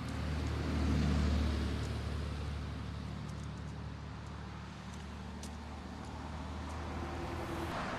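Motor vehicle running with a steady low rumble that swells about a second in, over a light hiss with a few faint ticks.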